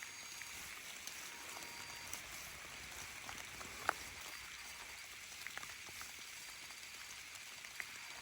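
Steady rain with scattered light taps of drops, and one sharper knock about four seconds in.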